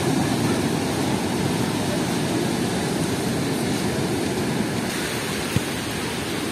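Steady rushing noise of surf and wind on an open beach, with no distinct events.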